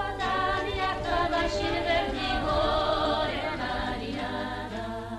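Choir singing without accompaniment, several voices holding long notes with vibrato, over a low steady hum.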